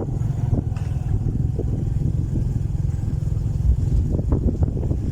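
Motorcycle engine running steadily while riding, a low rumble with a few light clatters.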